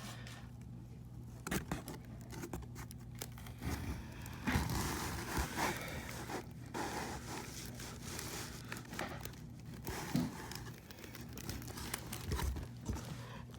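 Packaging for a live-animal shipment being opened and handled: packing material crinkling and rustling, with scattered small knocks and scrapes.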